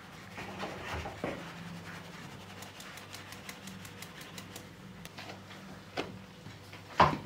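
Flour being sifted through a wooden-rimmed sieve into an enamel bowl: quick, light, even tapping and rustling as the sieve is shaken. Near the end, a hand works the flour and there is a sharp knock, all over a low steady hum.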